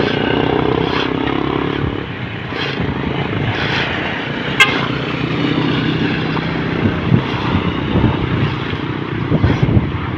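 Motor vehicle engines running and passing, loudest in the first two seconds, with one short horn toot about halfway through.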